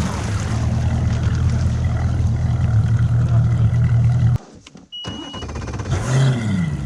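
Bass boat outboard motor running steadily. About four and a half seconds in, it cuts out abruptly for about half a second, with a short high beep in the gap, then runs again.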